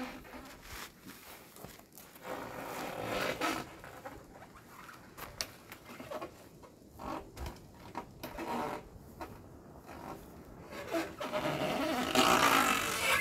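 Rattling, rustling and clicking in several uneven bouts as a fat-tyre electric bike is handled and wheeled out of the back of a van. The loudest bout comes near the end, as the bike comes down onto the gravel.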